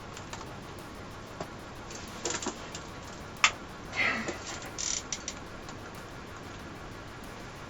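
Scattered small plastic clicks and clatter from a laptop being handled, with one sharp click about three and a half seconds in the loudest and a short scrape just after.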